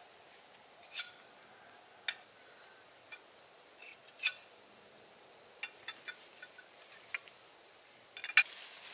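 Metal tent pole sections clinking and knocking together as they are handled and taken apart: a string of sharp clicks a second or so apart, some with a brief ring, the loudest about a second in and near the end.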